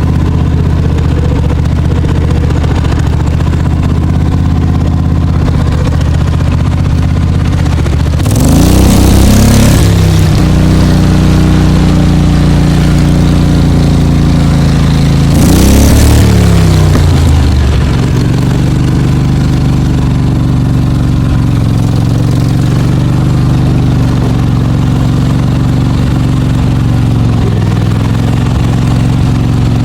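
V-twin engine swapped into a Cub Cadet 106 garden tractor, running steadily through its mufflers while the tractor is driven. Twice, about eight and fifteen seconds in, the engine note swings in pitch and gets briefly louder.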